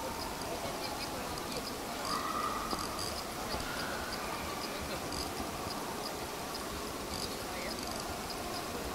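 Busy indoor hall ambience: a steady murmur of distant voices, with a faint, high chirping that recurs throughout.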